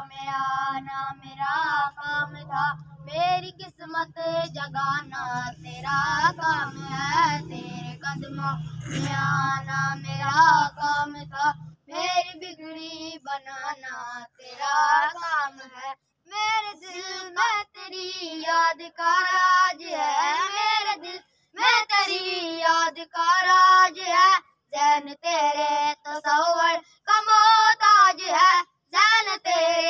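A naat, an Urdu devotional song, sung by a single high voice in long, wavering, ornamented melodic lines with brief breath pauses. A low steady hum lies underneath and stops about twelve seconds in.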